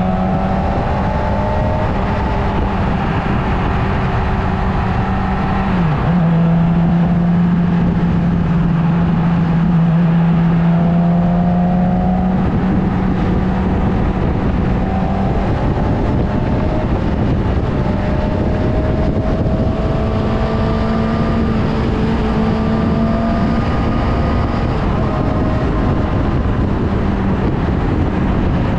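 Motorcycle engine running while riding, its note mostly steady with a few small shifts in pitch, over a constant rush of road noise.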